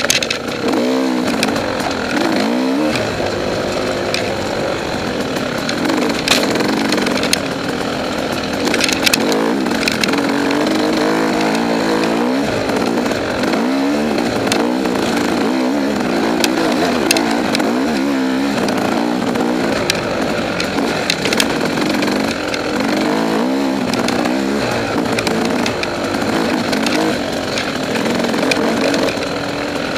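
Two-stroke single-cylinder engine of a KTM 300XC enduro bike, heard from on board, revving up and down again and again as the throttle is worked through tight trail. Occasional sharp clicks sit over the engine.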